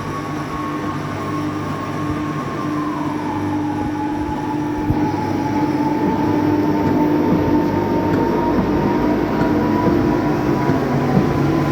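A machine running steadily, with a whine that drops slightly in pitch about three seconds in, over a low hum and rough noise.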